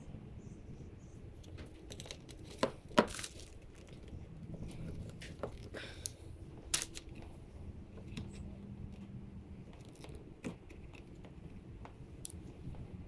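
Hand tools working on electrical wire: scattered sharp clicks and snaps among light rustling and handling, the loudest click about three seconds in, as wires are stripped and spliced with crimped butt connectors.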